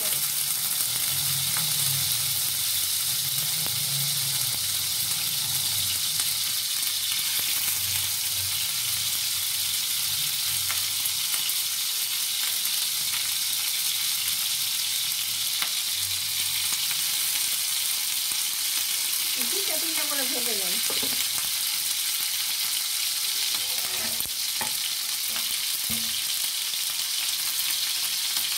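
Hot oil sizzling steadily in a frying pan. Near the end come a few light clicks as a chicken-and-vegetable skewer goes into the pan.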